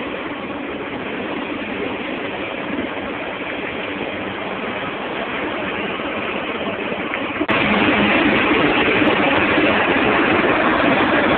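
Boat under way at sea: a steady engine drone under the rush of water and wind. About seven seconds in it suddenly gets louder, with the hiss of the churning wake along the hull.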